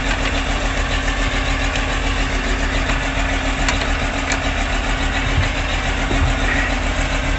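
Diesel engine of a self-propelled forage harvester (chopper) running steadily, its header just unhooked.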